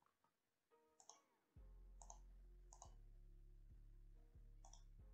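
A few faint clicks of computer use, about four in all, as a command is copied and pasted into a command prompt. A low steady hum starts about a second and a half in.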